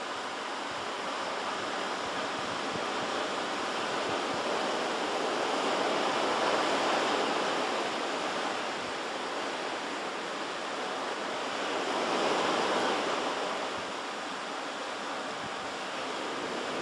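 Pacific surf: a steady rush of waves washing in, swelling louder about six seconds in and again about twelve seconds in.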